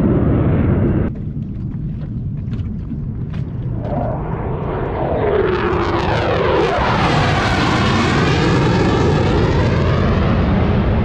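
Military jet aircraft, F-16s, flying past overhead: loud jet engine noise that drops away about a second in, then swells again from about five seconds in with a falling whine as the jets pass, and stays loud.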